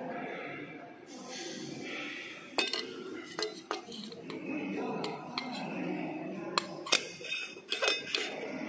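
Metal food tins clinking and knocking against a stainless steel turntable and against one another as they are picked up and set down by hand, a string of sharp irregular clinks from about two and a half seconds in.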